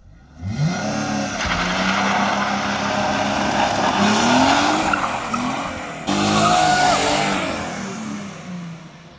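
Mercedes-Benz SLK320's 3.2-litre V6 revving hard as the car pulls away with wheelspin, tyres squealing over the engine note. The engine note climbs at the start and again about four seconds in. There is a sudden break about six seconds in, then a second burst that fades toward the end.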